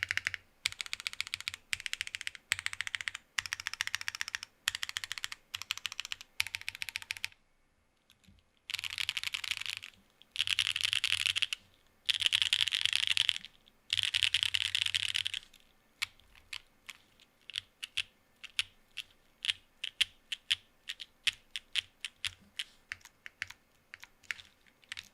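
Mode Envoy mechanical keyboard with Obscura linear switches on a carbon fiber plate, no foam, and Cherry-profile keycaps being typed on. Short bursts of fast keystrokes give way to four longer runs of rapid clattering about a third of the way in. Past the middle come single key presses, about three or four a second.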